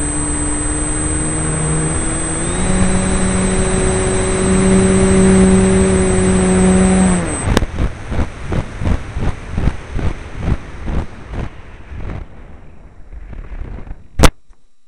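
RC airplane's motor running with a steady whine. It steps up in pitch about two and a half seconds in, then is cut about seven seconds in, its pitch dropping away. A run of rhythmic pulses follows as the plane comes down, and a single sharp knock near the end as it hits the ground.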